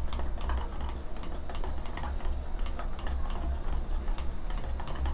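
Wire whisk beating a thick, waterless paste of gram flour and curd in a stainless steel bowl. The wires tap and scrape against the metal, giving irregular quick clicks several times a second over a low rumble.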